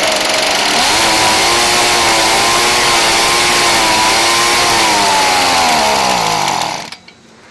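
Ryobi backpack blower's small gas engine running with its muffler refitted, its speed wavering and then sagging before it cuts out near the end. The owner blames the poor running on a clogged muffler.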